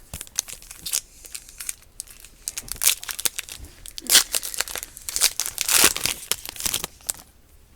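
Plastic wrapper of a trading-card pack crinkling and tearing as it is opened by hand, in many short crackles and rustles.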